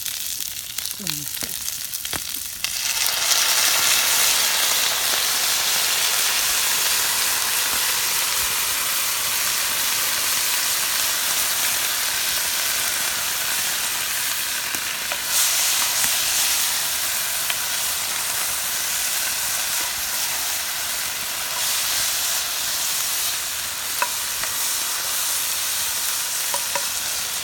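Green beans and onions sizzling as they are stir-fried in a frying pan. The sizzle gets suddenly louder about two and a half seconds in, then stays steady as they are stirred.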